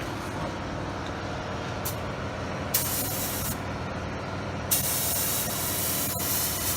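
Two bursts of pressurised air hissing, a short one about three seconds in and a longer one of about two seconds near the end, over a steady low hum.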